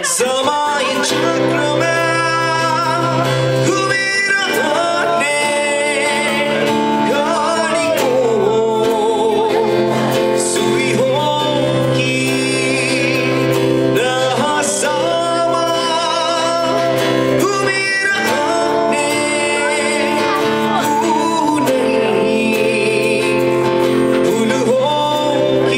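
Live singing accompanied by an acoustic guitar, a song performed with a sung melody over steady guitar chords.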